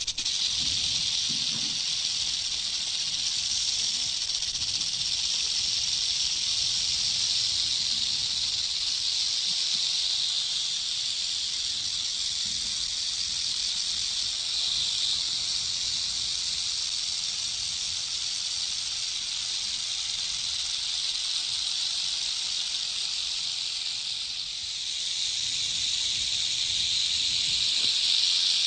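Snake hissing: a steady, high hiss that barely lets up, dipping briefly about twenty-four seconds in and louder again near the end.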